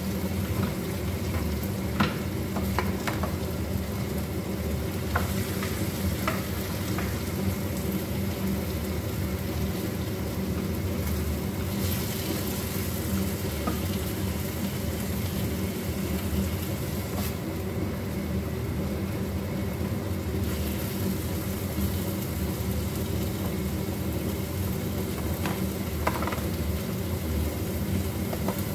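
Food sizzling as it fries in a pan on a gas stove, with a utensil clicking against the pan a few times. The sizzle grows louder at times, over a steady low hum.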